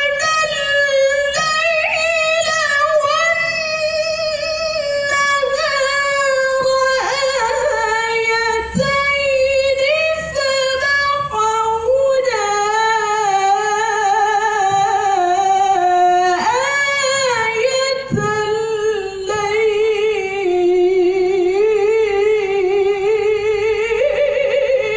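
A woman's voice reciting the Quran in the melodic tilawah style, amplified through a microphone and loudspeaker: long held phrases with rapid ornamental trills, sliding gradually lower in pitch, broken by only a few short breaths.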